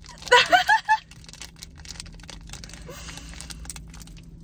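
A woman's high-pitched giggle, short repeated rising-and-falling notes, for about the first second. After it comes faint crinkling and rustling of a plastic gummy-candy packet being handled.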